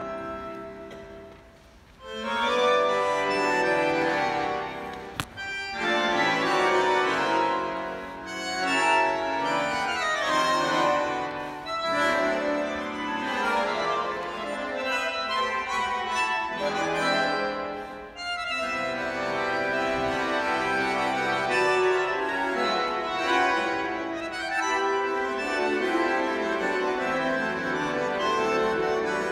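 A quartet of bandoneons playing a tango together in full, sustained chords and phrases, fading briefly a second or so in before swelling back, with a short lull in the middle. A single sharp click sounds about five seconds in.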